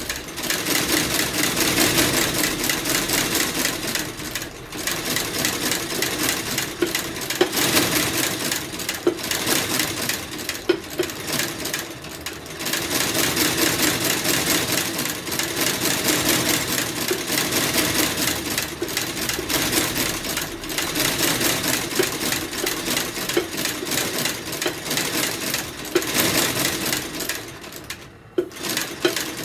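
Curved-needle stitching machine running in fast, even strokes as it sews a new midsole onto a boot, stopping briefly a few times.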